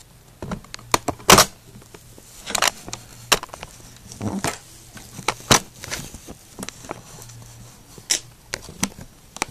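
Handling noise from a phone camera being gripped and readjusted: irregular knocks, clicks and short rubbing rustles close to the microphone, over a faint steady low hum.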